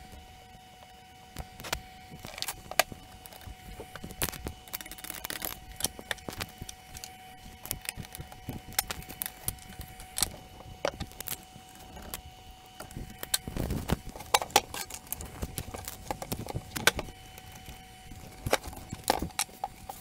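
Sped-up workbench sounds from reassembling a stereo receiver: irregular clicks, taps and metallic clatter of tools, screws and chassis parts, heavier in two clusters, over a faint steady tone that stops near the end.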